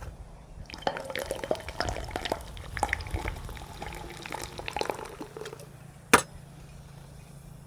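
Light clinking and liquid handling sounds, with many small clicks and short ringing tones, then a single sharp knock about six seconds in.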